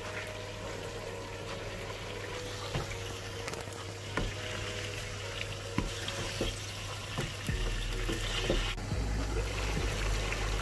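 Beef and sliced bell peppers sizzling in a hot non-stick pan while being stirred with a wooden spatula, with scattered light knocks of the spatula on the pan.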